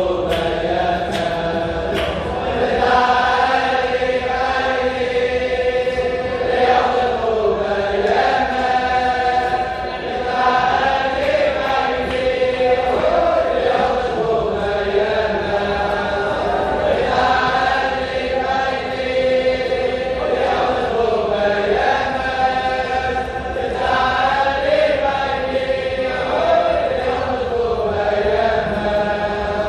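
A large group of Hasidic men singing a melody together in unison, holding each note for a second or two.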